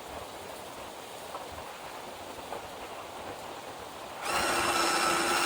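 Steady low hiss, then about four seconds in an electric drill/driver starts up and runs at a steady whine.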